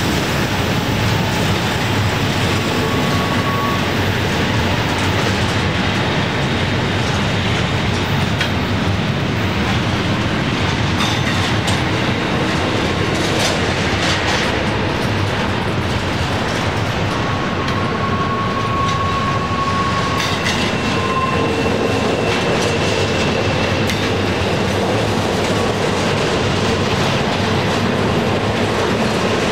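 Freight train cars rolling past, a steady loud rumble with wheels clattering over the rail joints. Faint steel wheel squeal comes in briefly a few seconds in, and again more than halfway through.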